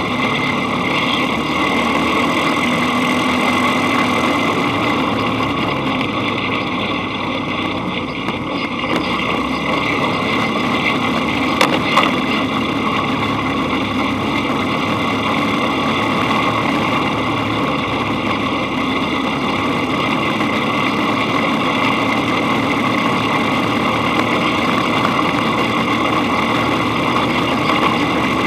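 Dune buggy engine running steadily while the buggy drives along a dirt road, with a couple of sharp knocks about twelve seconds in.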